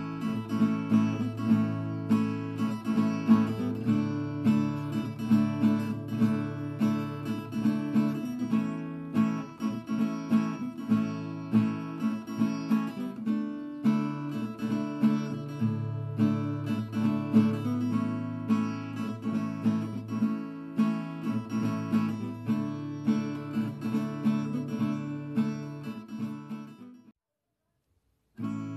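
Background music on strummed acoustic guitar with a steady rhythm. It cuts out to silence for about a second near the end, then starts again.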